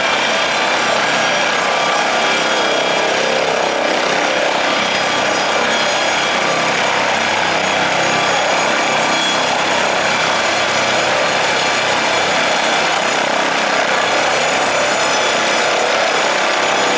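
Air ambulance helicopter running at take-off power, a steady loud mix of turbine whine and rotor noise with many high whining tones. It lifts off vertically near the end with no clear change in the sound.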